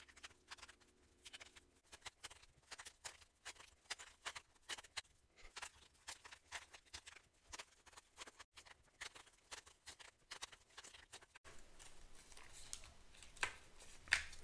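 Faint, quick clicks and snaps of thin cardstock as trading cards are popped out of perforated cardboard sheets one after another.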